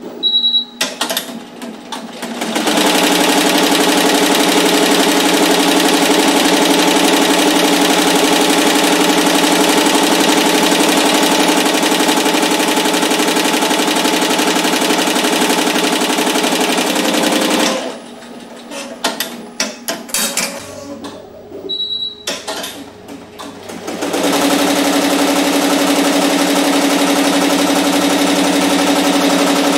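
Barudan multi-needle embroidery machine sewing a logo onto a cap, its needle running fast and steady. It opens with a few clicks and a short high beep, stitches for about fifteen seconds, then stops for several seconds of clicking and knocking with another short beep, and starts stitching again.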